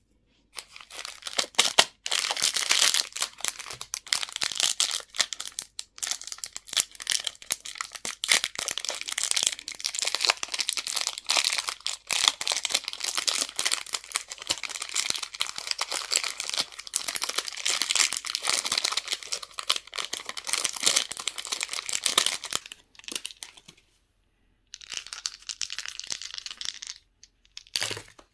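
Candy wrapper crinkling and tearing as it is handled and opened, a dense crackle that runs for about twenty seconds, stops, then comes back briefly near the end.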